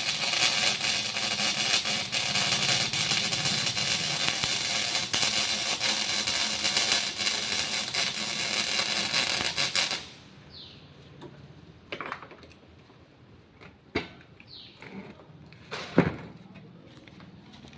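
A welding arc crackles loudly and steadily for about ten seconds, then cuts off suddenly as the weld stops. After that come a few separate knocks and short scrapes.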